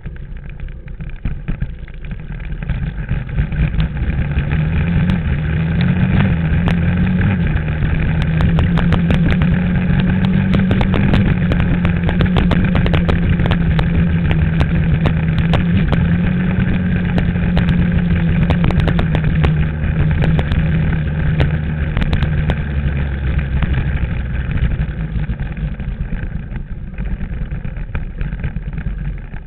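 Dirt bike engine pulling steadily along a rutted mud track. Its pitch rises over the first few seconds, then holds and eases off near the end, with frequent sharp clicks and knocks from the bike jolting over the ruts.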